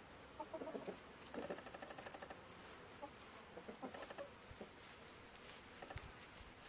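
Chickens clucking softly in scattered short, quiet notes, with faint clicks and rustling from pecking in the grass.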